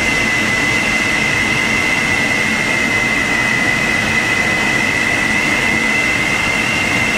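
Wind rushing over the canopy of an SZD-50 Puchacz glider flying at about 100 km/h, heard inside the cockpit: a steady, loud rush with a constant high whistle.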